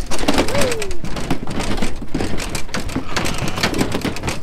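Many ewe lambs' hooves clattering in a rapid, dense patter on a livestock trailer's floor and ramp as the flock runs off.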